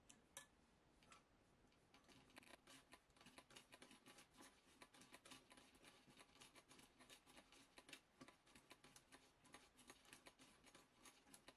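Vintage Singer 191K sewing machine stitching a test seam through fabric: a quick, even clatter of needle and feed clicks that starts about two seconds in, after a couple of single clicks.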